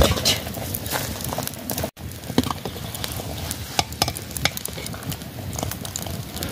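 Open wood fire crackling while a spoon stirs and scrapes in a metal pot set on the flames, with many short clicks and knocks.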